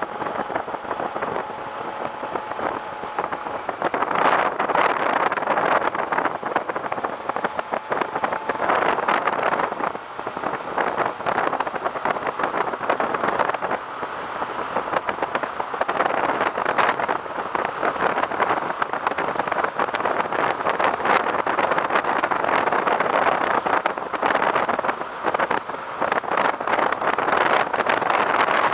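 Wind rushing and buffeting over the microphone of a camera on a Suzuki Bandit 1250 motorcycle riding at road speed, with the bike's engine running underneath. The rush swells and eases slightly as the bike goes through the curves.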